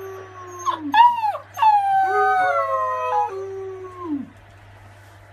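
Husky puppy howling, with a man howling along beside it: a string of long, wavering howls that sink in pitch at their ends, two voices overlapping at times. The howling stops a little after four seconds in.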